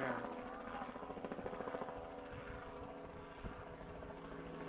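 Steam locomotive hauling a train in the distance, its exhaust beating fast and steady; louder in the first couple of seconds, then fading a little.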